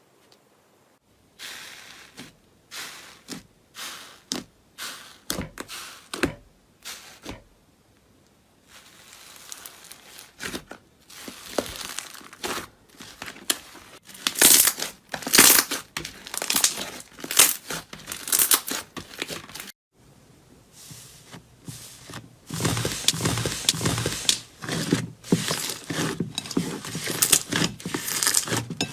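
Slime being pressed, poked and stretched by hand, close up: first a string of separate pops and clicks, then dense crinkling and crackling that gets louder, broken by a short gap about two-thirds through.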